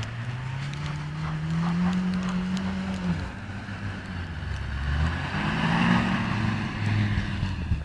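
Car engine revving in deep snow: the note climbs steadily for about three seconds and drops off abruptly, then climbs again from about five seconds in.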